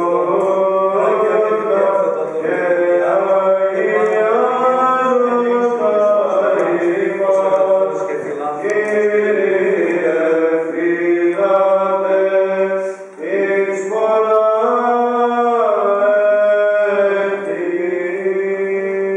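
Byzantine Orthodox chant at a memorial service: male voices sing a melismatic line over a steady held drone note (ison), with a brief breath about two-thirds of the way through.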